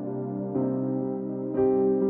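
Slow ambient keyboard music: soft sustained chords, with a new chord coming in twice.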